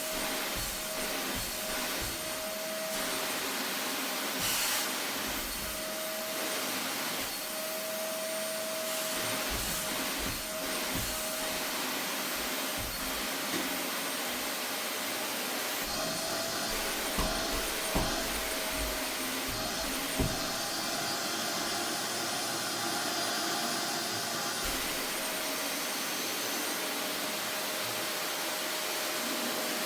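Vacuum cleaner running steadily while cleaning a dusty sofa, its motor whine wavering slightly in pitch, with a few short knocks about halfway through.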